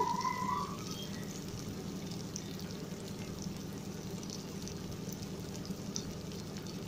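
Oil sizzling faintly in a steel kadai of frying potato and pointed gourd (parwal) pieces in masala, with scattered small crackles over a steady low hum.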